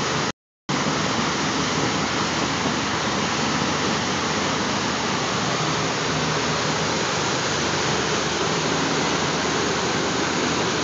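Churning prop wash and wake behind a 65-foot Bluewater motor yacht under way: a steady loud rush of water with a low hum underneath. It cuts out for a moment just after it starts.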